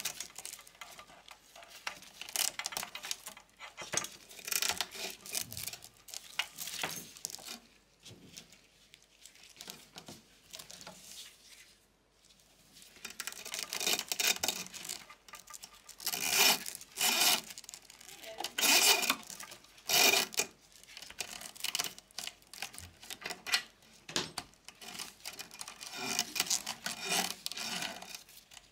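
Irregular rustling and scraping of 3D-printer wiring and braided cable sleeving being pulled and handled by gloved hands, with a quieter stretch in the first half and denser, louder strokes later on.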